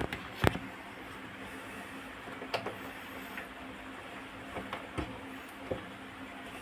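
Scattered clicks and knocks of handling during a washing machine repair, the loudest about half a second in, over a steady low hum.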